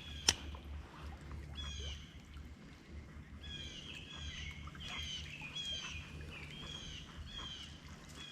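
A bird calling over and over in short, curved chirps, roughly once or twice a second, over a low steady rumble. A single sharp click sounds just after the start.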